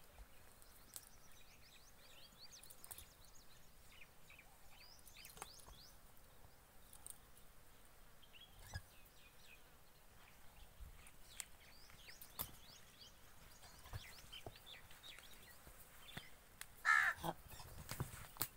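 Quiet rural ambience with scattered faint bird chirps and a few soft knocks. Near the end comes a brief, louder, harsh animal call in three quick notes.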